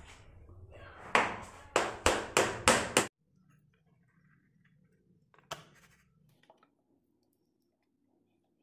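Six sharp knocks on pine tongue-and-groove wall paneling, about three a second, as a board is knocked into place; they stop abruptly. One lighter tap follows a couple of seconds later.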